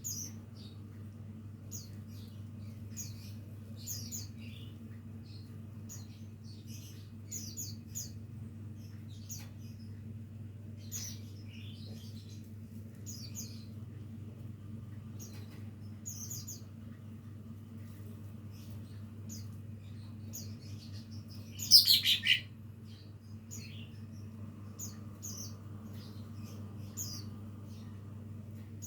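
A small green leafbird (cucak ijo mini) practising its song: short, scattered high chirps and twitters, with one louder call about 22 seconds in. A steady low hum runs underneath.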